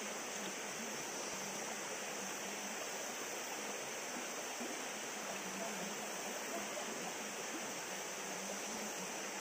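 Steady rushing of river water, an even hiss with no break or change.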